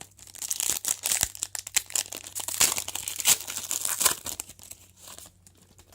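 Foil trading-card pack wrapper being torn open and crinkled by hand, irregular crackling that fades out about four and a half seconds in.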